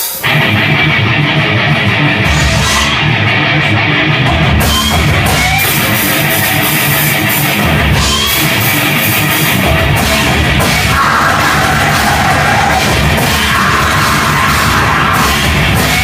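Rock band playing heavy metal: distorted electric guitar over a drum kit, starting right at the beginning and keeping up a loud, steady wall of sound.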